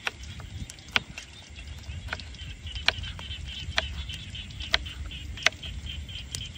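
A series of sharp knocks, about one a second and slightly irregular, over a steady high-pitched chirring.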